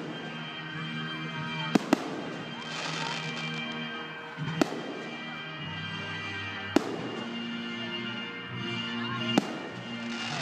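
Aerial fireworks bursting in sharp bangs, a quick pair near two seconds in and then single bangs every two to three seconds, over music with held notes.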